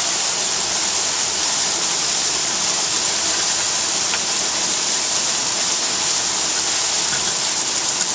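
Heavy thunderstorm rain pouring down in a steady, loud hiss.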